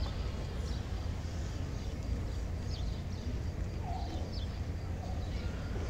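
Small birds chirping, short high downward chirps about once a second, over a steady low outdoor rumble.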